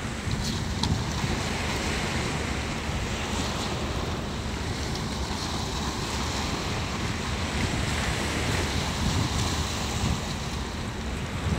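Sea waves washing and splashing over shoreline rocks, with wind buffeting the microphone in a steady low rumble.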